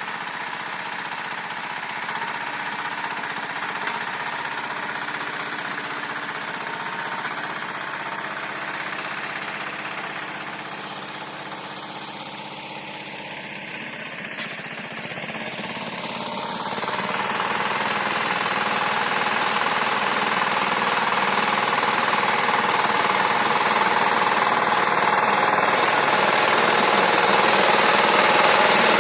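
Walk-behind tractor's engine running steadily while its rotary tiller works the garden soil. The sound dips a little around the middle and then grows steadily louder through the second half.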